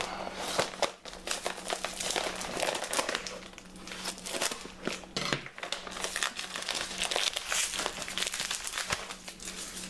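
Brown wrapping paper crinkling and rustling in the hands as a wrapped gun part is unwrapped, a dense run of irregular crackles.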